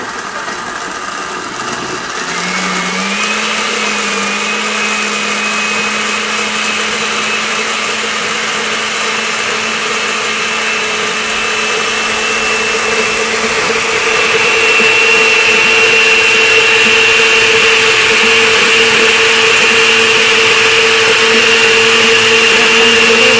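Push-button countertop blender running, puréeing fresh corn kernels with water into a thin milky liquid. The motor's hum rises and settles about two seconds in, and the sound grows louder about fourteen seconds in.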